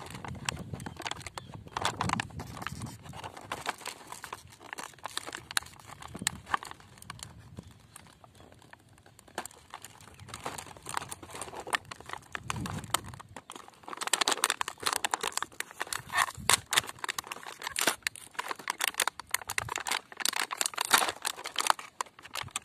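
Toy packaging being opened by hand: repeated crinkling and crackling with sharp clicks and some tearing, busiest in the second half.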